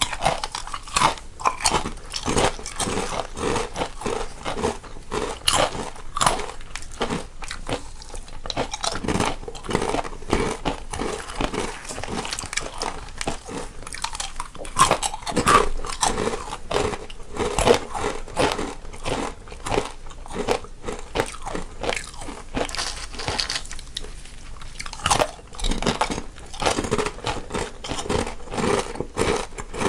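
Two people crunching and chewing crunchy snacks, one in each stereo channel: a dense, irregular run of sharp bites and crunches.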